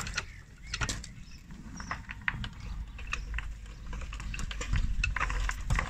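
Hydraulic floor jack letting a car down onto gravel: scattered clicks and gravel crunching under the wheel and jack, growing louder in the second half.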